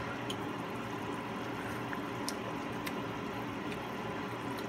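Pot of broth simmering on the stove: a steady hiss, with a few faint ticks.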